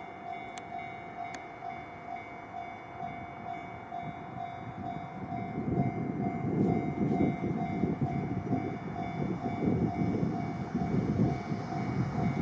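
Japanese level-crossing warning bell ringing in a steady, evenly repeated tone. An EF210 electric locomotive hauling a container freight train approaches beneath it, its rumble growing louder from about five seconds in.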